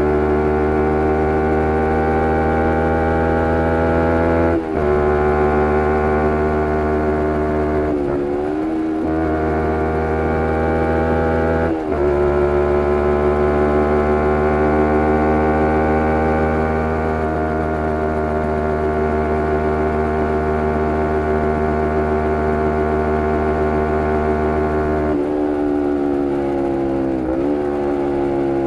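2011 Kawasaki Ninja 250R SE's parallel-twin engine through a full Graves Diamond race exhaust, ridden hard: revs climb and break off briefly at gear changes about five, eight and twelve seconds in. It then holds high revs steadily for a long stretch, slowly easing off, with a few more dips in pitch near the end.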